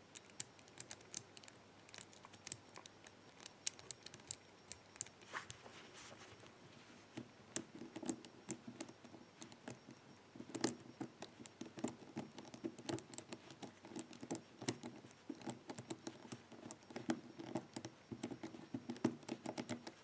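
Number wheels of a Master four-wheel combination padlock turned by fingertip, an irregular run of small metal clicks as the wheels step past their numbers, sparse at first and busier from about seven seconds in. The shackle is held under tension while each wheel is turned back and forth between the points where it binds, to find the middle of its free area and decode the combination.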